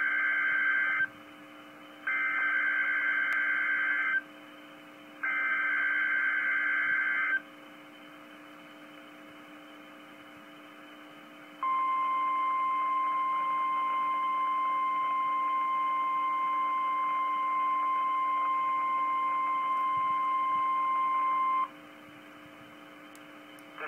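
Emergency Alert System signal from NOAA Weather Radio announcing a test tornado warning: three buzzy digital header bursts of about two seconds each, a second apart, then after a pause the 1050 Hz warning alarm tone, held steady for about ten seconds. A faint steady hum sits underneath throughout.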